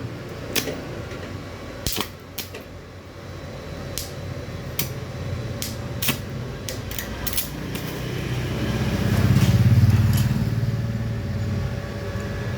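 A passing motor vehicle, its engine hum swelling to a peak about nine to ten seconds in and then fading, over scattered sharp clicks and knocks in the first half.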